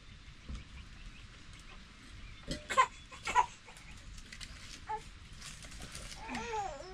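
Two sharp knocks about half a second apart, then near the end a short wavering goat bleat.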